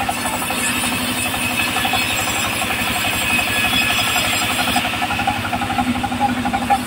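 Home-built, engine-driven bandsaw mill running steadily with a fast, even chugging while a teak plank is fed through the blade.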